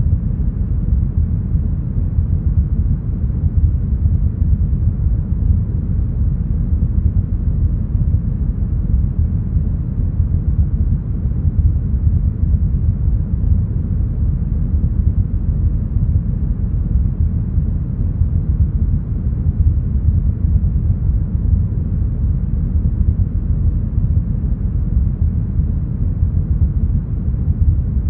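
Deep, smoothed brown noise: a steady, even rush weighted heavily toward the bass, with no high hiss at all.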